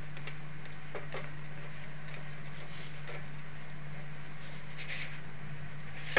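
A steady low hum, with a few faint scrapes and taps of a plastic spatula working a dosa on a nonstick tawa, and a sharp knock at the very end.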